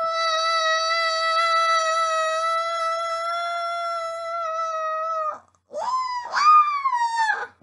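A child's long scream, held at one high pitch for about five seconds, acting out a plush toy's fall; it breaks off and two shorter yells follow, each swooping up then falling away.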